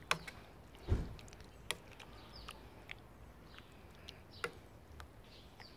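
Metal spoon clicking and scraping against a stainless steel pot while a thick minced-meat stew is stirred: a handful of scattered clicks, one with a dull thump about a second in.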